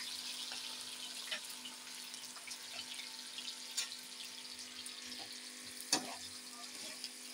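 Sliced onions frying in a pot of hot oil: a steady sizzle, with a few light knocks of a metal ladle against the aluminium pot, the sharpest about six seconds in.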